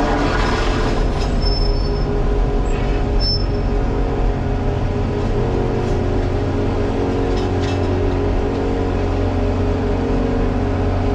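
Volvo 235EL excavator's diesel engine running steadily under work, with two brief high-pitched tones in the first few seconds.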